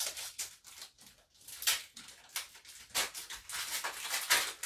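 Pokémon trading cards being handled on a tabletop: an irregular run of short rustles and flicks as cards are slid and laid down, a few of them louder.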